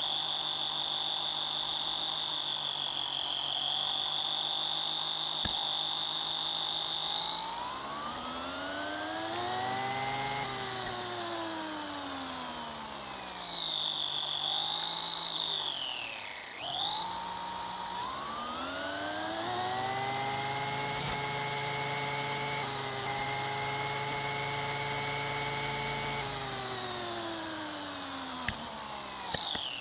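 RC car's electric motor and gears whining, pitch rising as the car speeds up and falling as it slows. Steady at first, it climbs, drops to a low dip in the middle, climbs again and holds, then falls away near the end.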